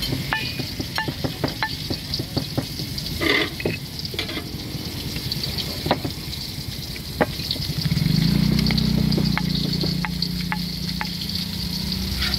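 Wooden pestle grinding and scraping peanut sauce on a ceramic plate, with repeated sharp clicks as it knocks against the plate. A steady low hum comes in about eight seconds in.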